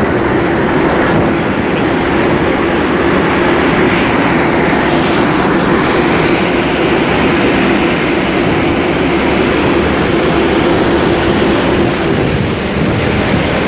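Ships moving close alongside each other: a steady rushing noise with a droning hum running under it, the hum fading out near the end.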